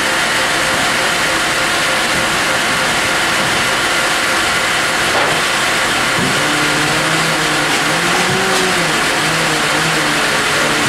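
LBL Brenta CD horizontal band sawmill running: steady, loud machinery noise as the log is turned and set on the deck. About six seconds in a low hum joins it and wavers slightly in pitch.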